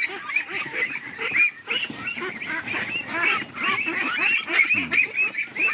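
A crowded flock of ducks calling in a dense, overlapping chorus of short calls as they are caught by hand in their pen.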